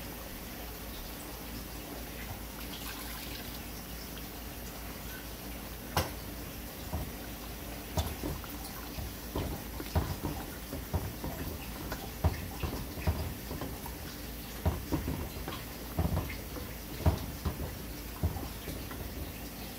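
Chicken curry simmering in a large aluminium pot, with a soft bubbling. From about six seconds in, a spatula stirs it, making irregular knocks and scrapes against the pot.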